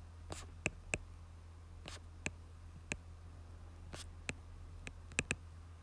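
Stylus tip tapping and clicking on a tablet's glass screen while handwriting, about ten short, sharp clicks at uneven intervals over a low steady hum.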